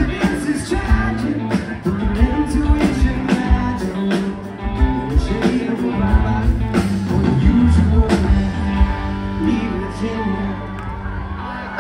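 Rock band playing live: drums, bass and electric guitar in a steady groove, with some singing.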